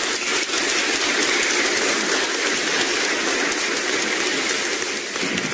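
Congregation applauding: many hands clapping in a steady, dense patter.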